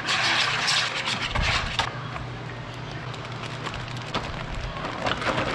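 A whisk beating a thick marinade in a plastic bowl, scraping and clicking against the sides, loudest in the first two seconds. About four seconds in, a plastic zip-top bag rustles and crinkles as the marinade is poured into it.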